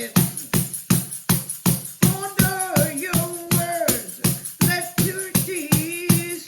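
Music with a fast, steady percussion beat, about four beats a second, and a melody line that comes in about two seconds in.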